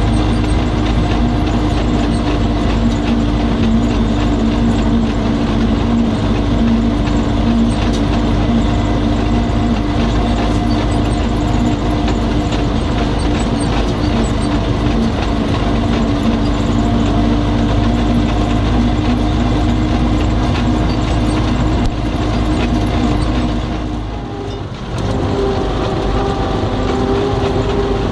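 MTZ-80 (Belarus) tractor's four-cylinder diesel engine running under heavy load, heard inside the cab as it pulls two loaded grain trailers. About 24 seconds in, the engine note drops away briefly and comes back at a higher pitch.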